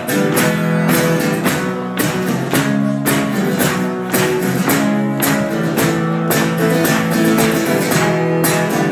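Acoustic guitars strumming chords in a steady rhythm, with a sharp accented stroke about once a second: the instrumental lead-in to a folk song.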